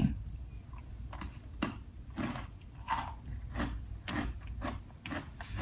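Chewing an Oreo cookie: a steady run of short crunches, about one every half second to second, beginning about a second in.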